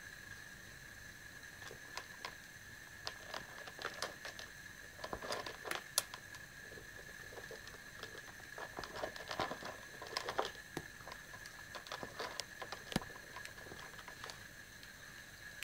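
Two cats, a half-Persian and a half-Maine Coon, crunching dry kibble from their bowls: irregular crisp crunches and clicks that come in busy clusters. A steady faint high whine runs underneath.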